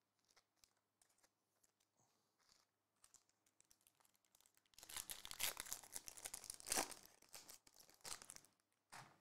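Foil wrapper of a trading-card pack being crinkled and torn open by hand. Faint scattered crinkles at first, then a few seconds of loud crackling and tearing from about halfway through, with one short crinkle near the end.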